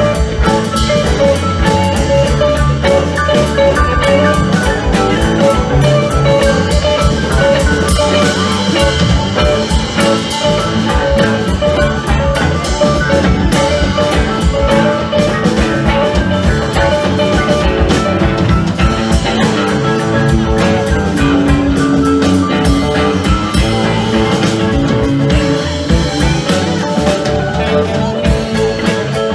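Live rock band playing an instrumental jam: electric guitars, bass, drums and keyboards, heard through the PA from the audience.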